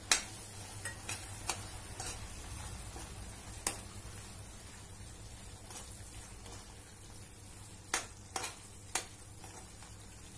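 Spinach gravy sizzling in a pan while a steel spoon stirs freshly added paneer cubes into it. The spoon knocks and scrapes against the pan now and then, sharply right at the start and a few more times later on.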